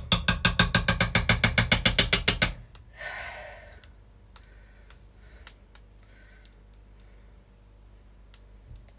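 Potato masher pounding boiled potatoes in a steel saucepan, fast and even at about six strokes a second, stopping about two and a half seconds in. Then a short scrape and a few light clicks of the masher against the pot.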